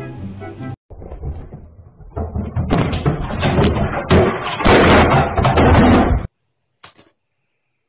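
Background music briefly, then a loud, rapid clatter of knocks and bangs lasting about four seconds that stops suddenly, followed by a single click.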